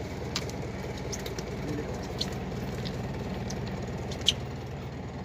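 Fishing boat's engine idling steadily, with a few short clicks and taps from handling gear on deck.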